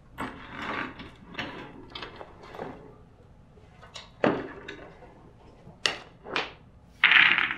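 Irregular knocks and rustling, then a loud slap about seven seconds in as a stack of photos is slammed down onto a pool table.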